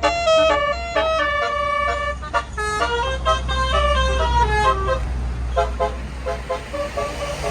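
A tour bus's telolet (Basuri) multi-tone air horn playing a quick melody of stepped notes, over the low rumble of the bus's engine. The notes grow sparser and fainter in the last couple of seconds.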